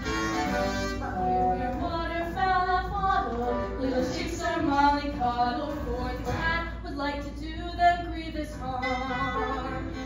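Lively backing music for a stage musical's farmyard song, a bouncy melody over accompaniment, with some singing.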